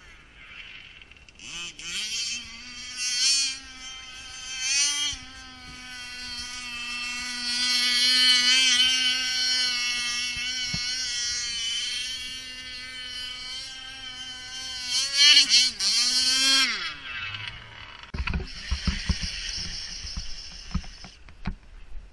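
Radio-controlled car's motor revving in a few short bursts, then running at a steady high pitch for about ten seconds before revving twice more and winding down. A few low thumps follow near the end.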